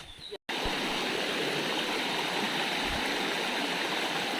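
Steady rushing of flowing water, starting abruptly about half a second in after a brief dropout.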